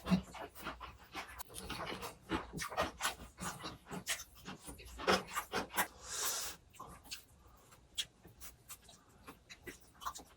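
Close-up eating sounds from pork belly being chewed: a quick, irregular run of wet mouth clicks and lip smacks, thinning out toward the end, with a brief louder noise about six seconds in.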